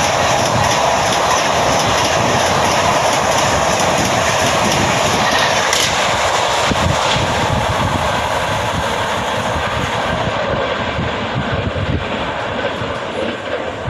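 Tejas Express passenger coaches passing close at about 130 km/h: a steady rushing roar with wheels knocking over the rail joints. It thins out and fades over the last few seconds as the train goes by.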